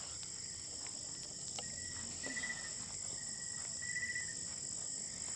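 Night chorus of crickets: a steady high-pitched drone, with a shorter, lower trill coming and going several times.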